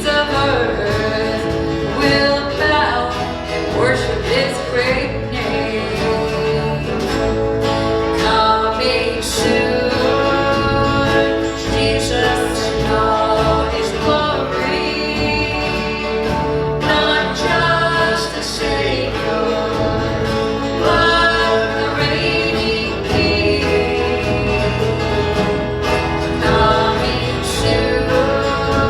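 Live country-gospel music from a church worship band: a sliding melody line over steady bass and accompaniment.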